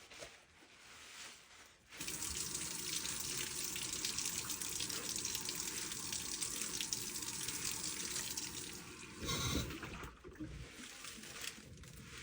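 Water rushing in steadily as a washing machine fills, starting abruptly about two seconds in. Near the end the flow gives way to a brief louder low sound and then a quieter, uneven trickle.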